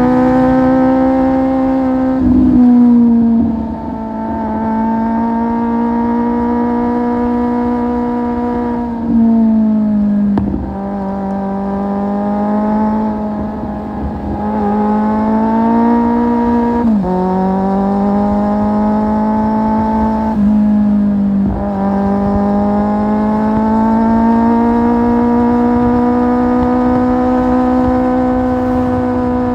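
Kawasaki Z750 inline-four running through an Akrapovic exhaust while being ridden. The engine note climbs slowly and drops sharply about four times, around 2, 9, 17 and 21 seconds in.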